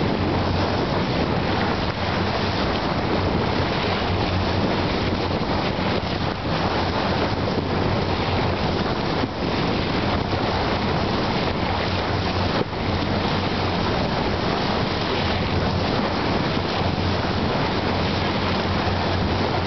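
Water rushing and splashing along the hull of a boat under way, over the steady hum of its engine. Wind buffets the microphone throughout.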